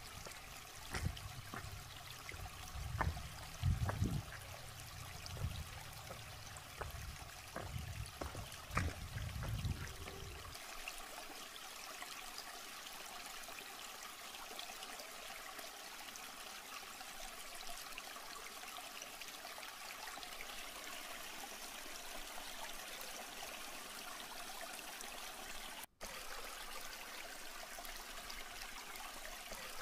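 Shallow stream trickling over rocks, a steady watery hiss, with irregular footsteps and bumps on the rocks during roughly the first ten seconds.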